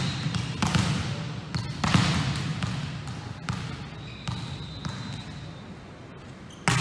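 A volleyball bounced on a gym floor a few times, single thuds about a second apart, as the server readies to serve, then a sharp slap of the serve near the end.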